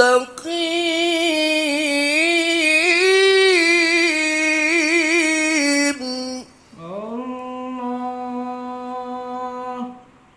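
A male qari recites the Quran in the melodic tilawah style, closing the verse with 'ila sirātin mustaqīm'. He holds a long, ornamented note that wavers up and down for about six seconds, pauses briefly, then slides upward into a final held note on 'mustaqīm' that stops near the end.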